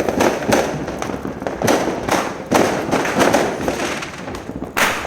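Fireworks and firecrackers going off in quick succession: many overlapping bangs and pops, with one louder bang near the end.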